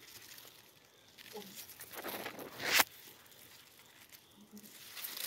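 Grass and leaves rustling as someone pushes through dense undergrowth, with one sharp swish about halfway through.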